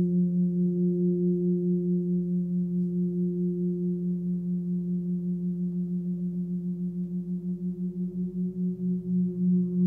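Large forged gong played with a soft ball-headed mallet, sounding a sustained low hum with a slow, even pulsing beat. The pulsing grows slower and deeper toward the end.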